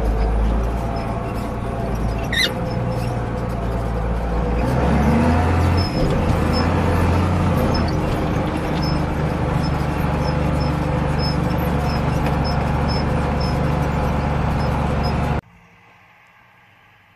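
Ford 8830 tractor's diesel engine running under way. The engine note shifts with a short rise about five seconds in, then holds steady until it cuts off abruptly near the end.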